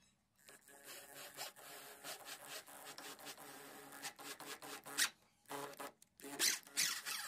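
Electric drill boring a hole through a wooden board: a motor whine under the grinding of the bit cutting wood, broken into a few shorter spurts near the end.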